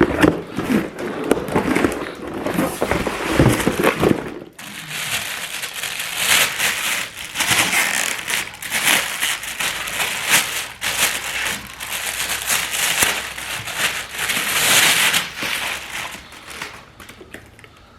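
Crinkling and crackling of plastic or paper packaging being handled, in quick irregular rustles that fade out near the end.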